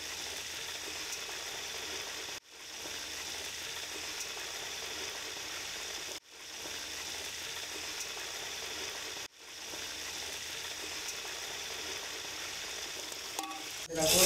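Blocks of ghee sizzling as they melt in a hot aluminium pot over a gas burner: a steady hiss that cuts off abruptly and restarts several times.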